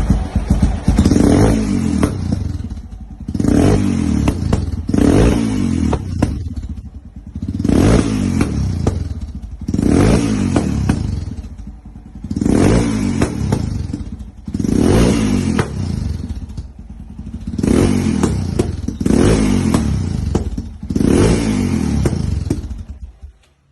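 Yamaha XT660's single-cylinder four-stroke engine revved repeatedly through an aftermarket Kimoto exhaust: short throttle blips about every two seconds, dropping back toward idle between them. The engine sound stops abruptly near the end.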